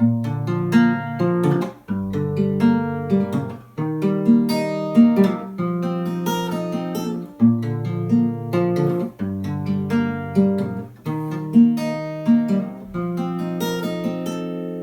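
Acoustic guitar playing a plucked, strummed instrumental passage, with the bass note changing about every two seconds. Near the end a final chord is held and rings out, fading away.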